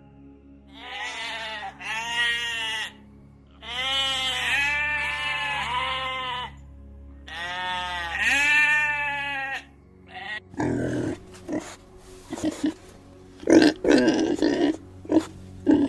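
Three long, quavering bleats, followed from about ten seconds in by a run of short, rough, low calls from a different animal, over faint steady background music.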